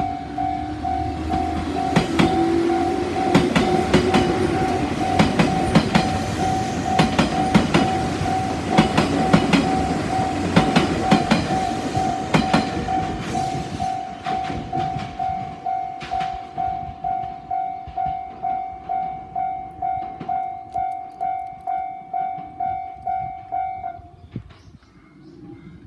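Japanese level-crossing alarm ringing steadily about twice a second while an electric train passes, its wheels clacking over the rail joints. The train's noise fades about halfway through, and the alarm stops near the end.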